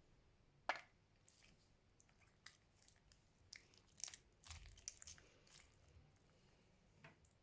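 Fluffy slime being squeezed and poked by hand, giving scattered small pops and crackles. The sharpest pop comes about a second in, and a cluster follows between about four and six seconds in.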